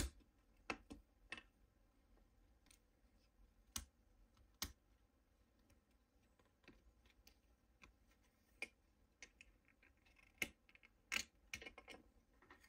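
Faint, scattered clicks and taps of plastic internal shields on a Samsung Galaxy S23 Ultra being pried loose with a tool and lifted out, one small snap every second or so.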